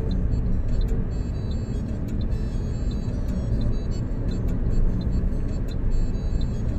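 Car driving along a highway, heard from inside the cabin: a steady low rumble of road and engine noise.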